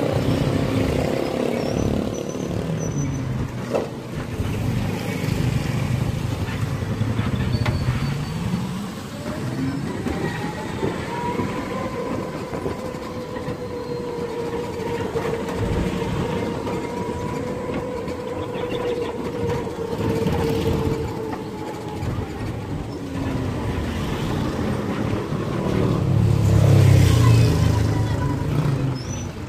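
Electric tricycle running, heard inside its cab: steady road and rattle noise, with the motor's whine rising in pitch about ten seconds in as it speeds up, then holding steady for several seconds. A louder low rumble comes near the end.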